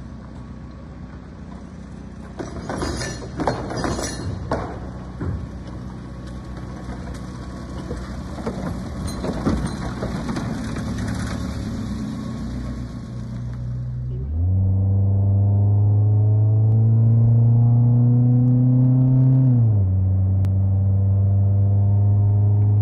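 Rough outdoor noise with several sharp knocks as the rally car runs on a dirt road. About 14 seconds in, the engine of a Peugeot 205 1.6 automatic fitted with motorbike carburettors takes over, heard from inside the cabin. Its note rises steadily under acceleration, drops sharply about 19 seconds in, then holds steady.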